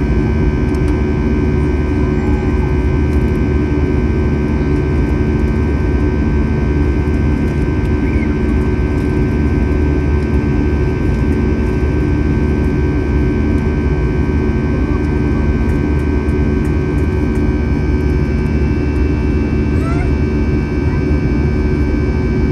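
Cabin noise beside the CFM56 turbofan of an Airbus A321-211 under climb power: a loud, steady low rumble and rush of air with many steady tones layered over it, the engine's buzzsaw drone.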